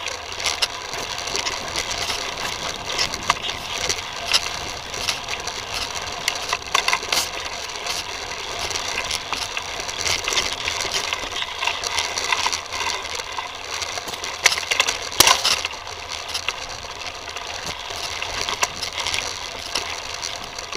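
Titus FTM full-suspension mountain bike rolling along a rough dirt trail: a steady crunching rattle of tyres and frame over the ground, dotted with sharp clicks and knocks, with a burst of louder knocks about three-quarters of the way through.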